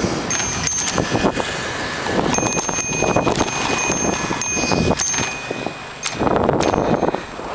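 Bicycle being ridden along a paved road: wind buffeting the microphone and road rumble, with repeated short metallic pings and clinks from the bike as it jolts over the surface.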